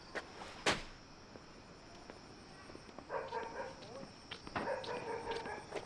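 A sharp knock, then an animal calling in two short bouts about three seconds in and again about four and a half seconds in, over a faint steady high drone.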